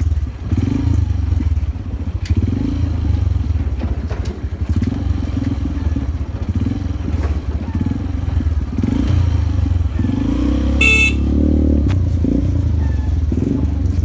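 Honda XR125 motorcycle's single-cylinder four-stroke engine running steadily, with a short horn beep about eleven seconds in.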